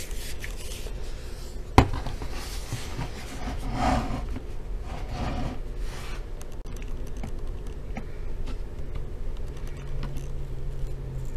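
Rubbing and scraping handling noises from hands working on a laptop, with one sharp click about two seconds in.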